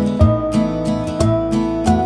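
Background music: a strummed acoustic guitar with a steady beat.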